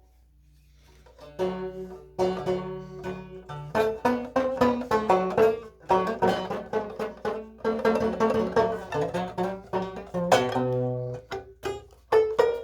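Old three-string banjo being picked, a quick run of plucked notes starting about a second in. It has a loose nut and a broken head, so it cannot be tuned properly.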